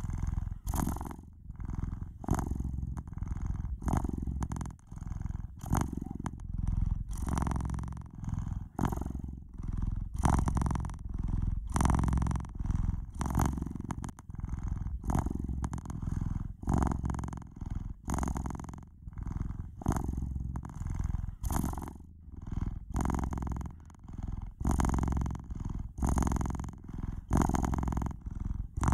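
Domestic cat purring steadily, the purr swelling and easing with each breath about once a second.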